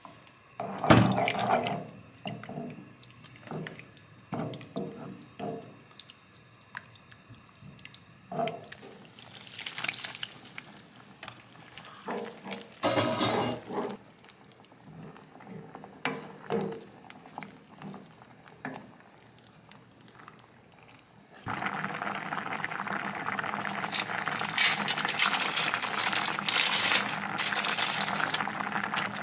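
A wooden spoon stirring cream sauce and vegetables in a frying pan, with irregular scrapes and knocks. About three-quarters of the way through, a thick cream sauce boiling hard in the pan takes over suddenly: a steady, louder bubbling with crackles.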